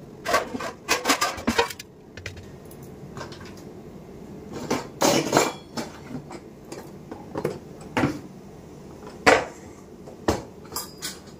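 Kitchen dishes and utensils clinking and clattering in short, irregular bursts, with one sharp knock standing out near the end.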